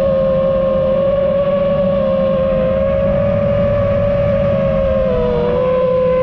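FPV racing drone's motors and propellers whining in flight, a steady high hum whose pitch dips slightly about five seconds in.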